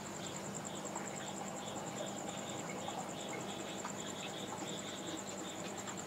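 Insects trilling: a continuous high-pitched trill, with a lower chirp repeating about twice a second, over a low steady hum.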